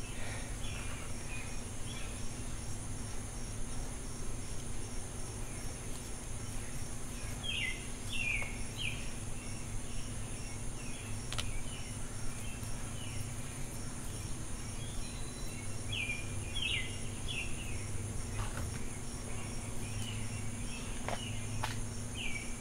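Outdoor ambience: small birds chirping in short clusters of calls every few seconds over a steady high drone of insects and a low hum, with a few faint clicks.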